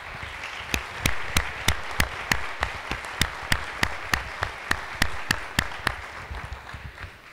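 Audience applauding, with sharp single claps standing out close to the microphone; the applause dies away near the end.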